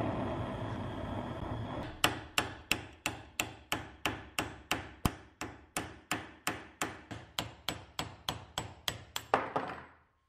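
A hammer striking a steel pin punch in a steady run of about twenty-three sharp blows, roughly three a second, each ringing briefly. The punch is driving a pin out of a torch-heated steel part clamped in a bench vise.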